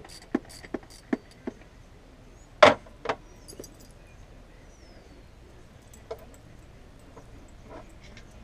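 A ratchet wrench clicks at about three clicks a second for the first second and a half as a bolt is worked in the engine bay. About two and a half seconds in, a tool clanks sharply against metal, with a smaller clank just after. Then come only a few faint taps.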